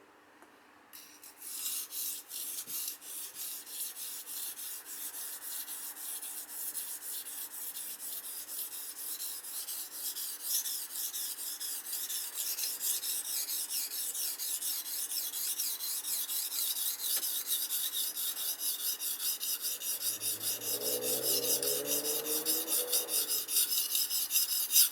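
Steel kitchen knife blade stroked back and forth on the fine side of a wet whetstone: a steady rhythmic scraping, about three strokes a second, starting about a second in.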